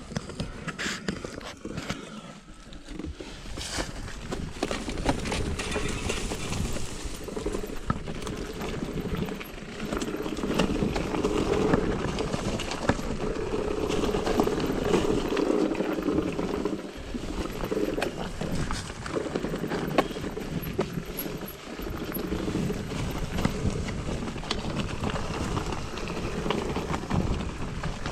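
Mountain bike being ridden over a rough trail: a continuous rush of tyre noise with constant clattering and rattling as the bike jolts over stones, louder from about ten seconds in.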